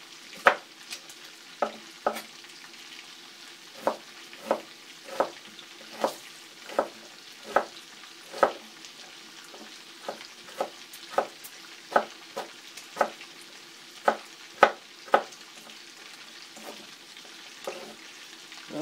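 Kitchen knife dicing an onion on a wooden cutting board: sharp knocks of the blade striking the board, irregular at about one or two a second, with a short lull near the end.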